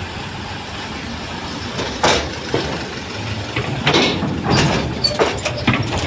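Mitsubishi Fuso light trucks driving off a ferry's steel ramp: diesel engines running under a steady rumble of traffic, with several sharp clanks from about two seconds in.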